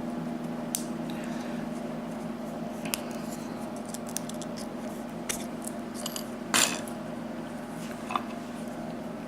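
Small metal lock parts clicking and clinking by hand as the lock cylinder's retaining clip is worked off, with one louder metallic clink about six and a half seconds in and a brief ring near the end, over a steady low hum.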